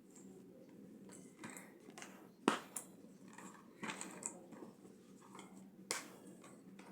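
Handling noises: a few sharp clicks and knocks, the loudest about two and a half seconds in and another near six seconds, with soft rustling between, over a faint steady hum.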